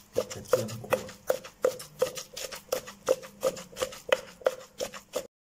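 Pestle pounding grilled catfish flesh and chillies in a mortar: steady knocks about three a second, each with a short ringing tone. The pounding stops abruptly near the end.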